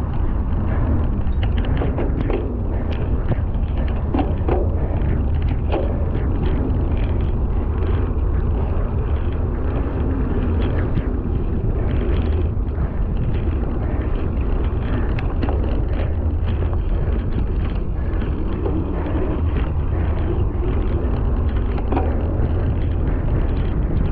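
Cyclocross bike riding fast over rough, muddy field ground: a steady heavy rumble of wind buffeting the microphone and knobby tyres on dirt, with many scattered short clicks and rattles from the bike.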